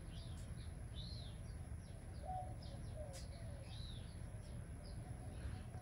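Faint bird chirps, a few short arched calls, over a steady low background rumble, with a couple of soft clicks.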